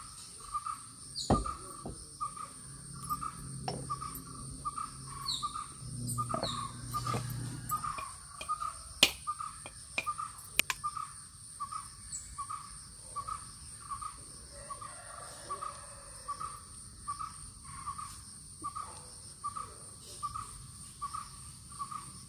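Birds calling, one call repeated steadily about twice a second, over a steady high drone. About nine seconds in come two sharp knocks a second and a half apart: a large knife striking a coconut to crack it.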